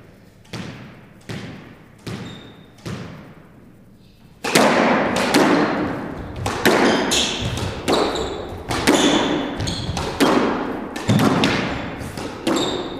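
A squash ball is bounced on a hardwood court floor about four times, evenly spaced, before the serve. About four and a half seconds in, a rally starts: the ball is struck by rackets and smacks off the court walls again and again, each hit echoing, with short shoe squeaks on the floor.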